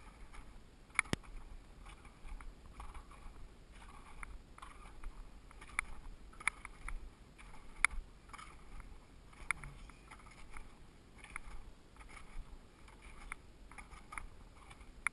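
Skis scraping over firm, tracked spring snow in a quick run of short bursts, with a few sharp clicks, heard from a camera carried by the skier, with a low wind rumble on the microphone.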